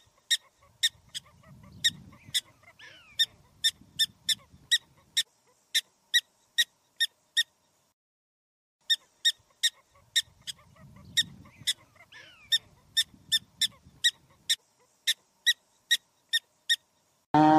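Prairie dog giving a rapid run of short, sharp, high barks, about three a second: the repeated bark of its alarm call. The barking stops for about a second and a half midway, then starts again.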